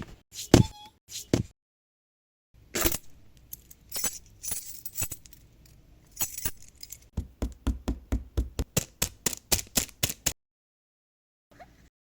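Foley sound effects of small hard objects: a few separate clicks and knocks, then a stretch of rattling and clinking, then a fast, even run of clicks about four or five a second that stops suddenly about ten seconds in.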